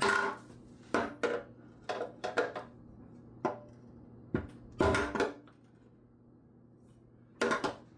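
Thin sheet metal being tapped with a metal tool to work out a dent: a series of irregular taps, each ringing briefly, with a quiet gap before a last tap near the end.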